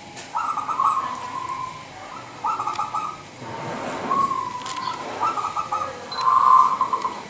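Caged zebra dove (local perkutut) singing its cooing song. It gives three phrases, each a quick stuttering run of coos ending in a drawn-out, rolling note.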